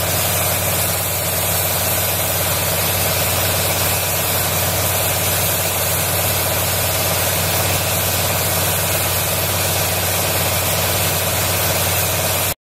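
Steady drone of the blower that drives air along the water surface of a capped wind-wave tank, with a low hum under a broad rush of air; it stops abruptly near the end.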